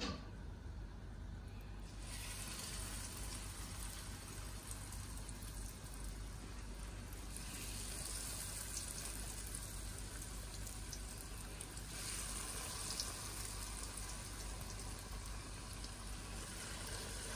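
Breaded chicken schnitzel cutlets sizzling as they are laid into a pan of hot oil, a steady frying hiss that starts about two seconds in and gets fuller as more cutlets go in.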